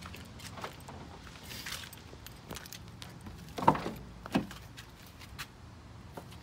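Driver's door of a 2010 Ford Mustang GT being unlatched and opened: two sharp clunks less than a second apart, a little over halfway in, amid small clicks and handling noises.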